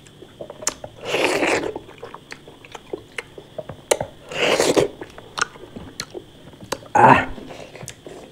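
Close-miked mukbang eating: wet chewing and mouth clicks and smacks, with three louder, longer wet noisy sounds about one, four and a half, and seven seconds in.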